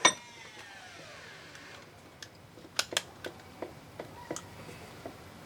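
Metal parts of an outboard's recoil starter being handled: a sharp clank with a ringing tone that falls in pitch over about a second and a half, then several light clicks and taps.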